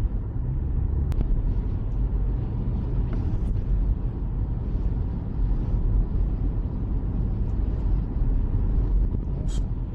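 Steady low rumble of a Toyota car driving on the road, heard from inside the cabin. There is a single light click about a second in.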